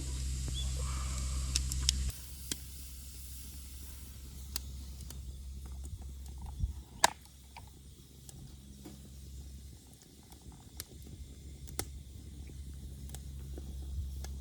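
Wood fire crackling, with scattered sharp pops, over a low steady rumble that drops about two seconds in.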